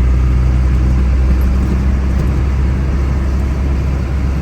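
Pickup truck driving at a steady speed while hauling a load of logs: a steady low engine and road drone.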